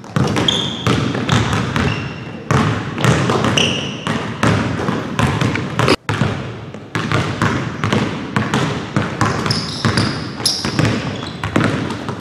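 Basketballs bouncing on a hardwood gym floor during dribbling drills, a steady run of sharp bounces with short high sneaker squeaks between them. The sound briefly cuts out about six seconds in.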